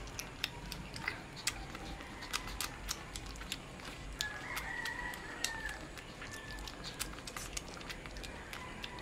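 A rooster crows once in the background, a drawn-out call starting about four seconds in, with fainter fowl calls around it. Over it come frequent sharp little clicks and smacks from a young Shih Tzu puppy licking and chewing raw meat from fingers.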